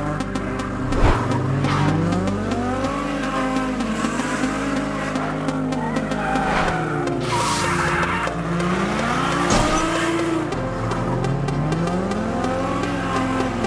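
Sports car engine revving up and falling back again and again as the car is driven hard and slid, with tyres skidding on dirt and gravel; the skid noise swells loudest a couple of times around the middle.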